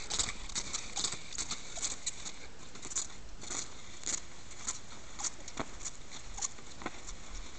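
Cross-country skis and poles on groomed snow: crisp crunching and scraping strokes of classic striding and pole plants, roughly two a second and slightly uneven.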